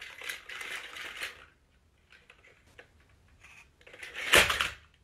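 Battery-powered toy dinosaur clattering as it walks on a wooden floor, its plastic mechanism rattling, then one loud, short, noisy burst about four seconds in.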